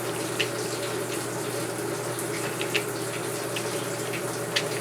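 Water pouring into a GE Deep Fill top-load washing machine's tub as it fills for a wash cycle: a steady rush with a low hum under it. A few light clicks sound over it.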